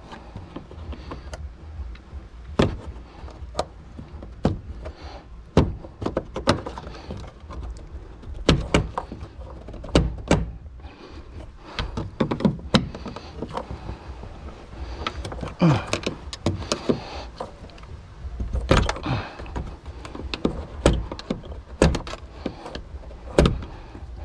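Irregular knocks, clicks and clunks of a fuel pump/sending unit assembly being pressed down and twisted to seat it in a car's fuel tank, with short scuffs of the parts being handled.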